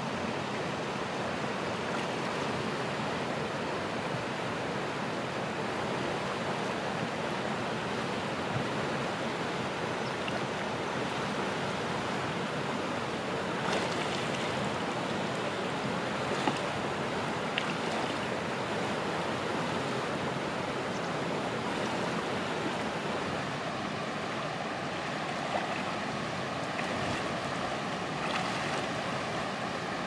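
Steady rushing of a shallow river flowing over rocks, with a few brief faint taps.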